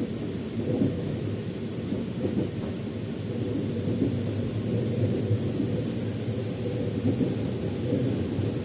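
Metro train running: a steady low rumble of wheels on the track, with no breaks.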